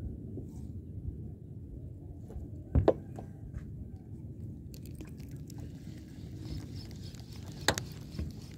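Sharp knocks on a small boat, a quick double knock about three seconds in and a single knock near the end, over a steady low rumble.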